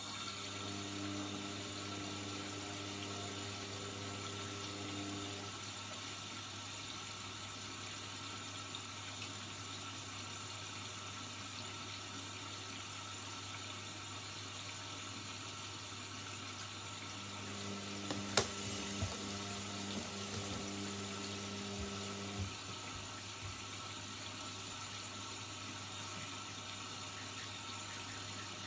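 Indesit 71252 washing machine taking in water, a steady rush of water into the drum with a low hum under it. A second, higher hum sounds twice, for about five seconds each time, and there is one sharp click about two-thirds of the way through.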